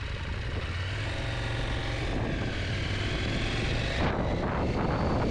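Motorcycle engine running under way, a steady low hum that slowly grows louder.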